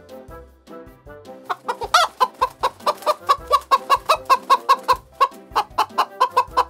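Chicken clucking in a fast run of short, sharp clucks, about five a second, starting about a second and a half in, with one louder squawk near two seconds. Background music plays underneath.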